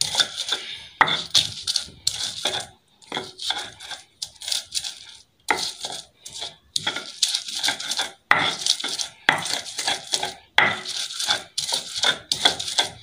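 Garlic cloves being crushed on a silauta, a flat grinding stone, with a round hand-held stone pestle: quick, uneven stone-on-stone knocks and scrapes, several a second, broken by a few short pauses.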